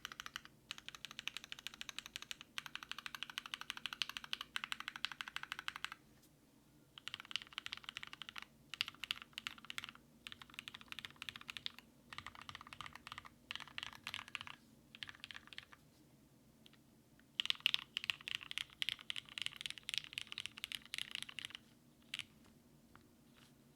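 Typing on a mechanical keyboard with lubed Cherry MX Black (Retooled) linear switches, 62 g springs, on an aluminium half-plate: rapid runs of key clicks and clacks in bursts, broken by short pauses, ending in a few single keystrokes near the end.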